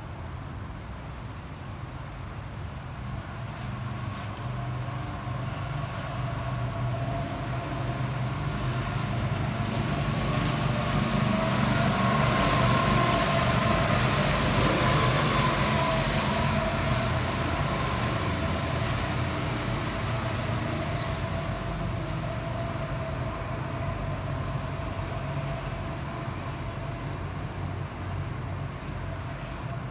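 Several small go-kart engines running as a group of karts drives past on the track, growing louder to a peak about halfway through and then fading.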